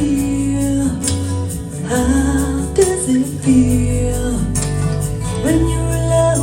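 A song with guitar, bass and singing, played back through Audio Phonic SE3 bookshelf speakers with 6.5-inch drivers and picked up in the room by a phone.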